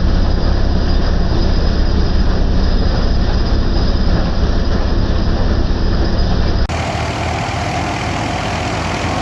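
Wheat harvesting machinery running loudly and steadily, a heavy engine-driven drone. About two-thirds of the way in it cuts abruptly to a similar, slightly quieter machine sound with a regular low throb.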